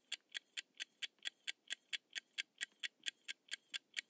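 Countdown timer sound effect: evenly spaced clock-like ticks, about four a second, marking the time left to answer.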